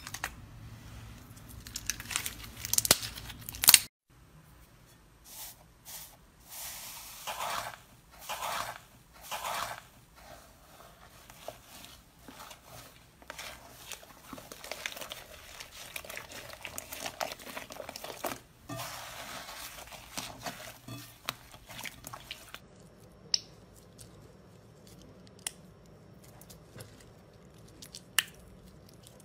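Hands squeezing, kneading and pulling slime in a bowl, making short sticky, crackling bursts about once a second. About three-quarters of the way through it turns quieter, with a few sharp clicks and crinkles as small plastic packets of slime are squeezed.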